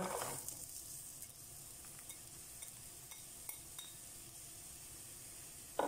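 Diced onion tipped into hot vegetable oil in a frying pan, then a faint, steady sizzle with scattered small pops as it starts to fry. A brief knock near the end.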